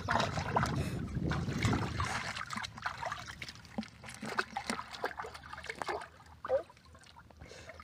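A hand squelching and sloshing through shallow muddy water, groping in the mud: an uneven run of soft wet splashes and squelches, busiest in the first few seconds and thinning out toward the end.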